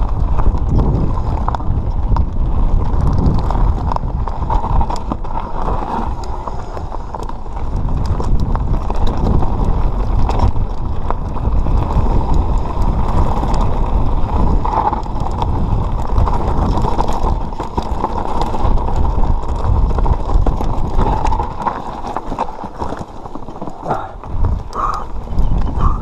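Mountain bike running fast down a rough dirt and stone trail: wind buffeting the microphone, tyres rolling over dirt and rocks, and the bike rattling and knocking over bumps. It eases off for a couple of seconds near the end before picking up again.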